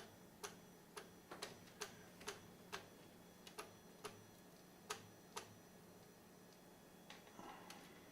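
3D printer extruder clicking, a sharp click about every half second that stops about five and a half seconds in, over a faint steady hum. The clicking is typical of the extruder's stepper motor skipping steps against a blocked hotend nozzle that is pushing out no filament.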